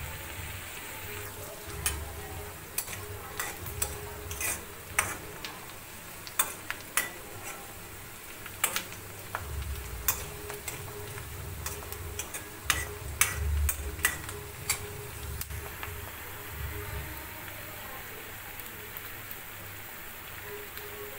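Chopped onions and dried red chillies sizzling in oil in a kadai, with a steel ladle clicking and scraping against the pan as they are stirred. The clicks come thick through most of it and thin out near the end, leaving the steady frying hiss.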